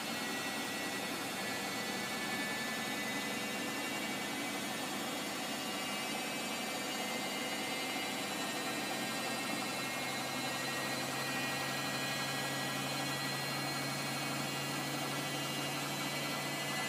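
Hoover Optima washing machine on its final spin, the motor and drum running steadily with faint high tones over the noise. A lower hum grows stronger about ten seconds in.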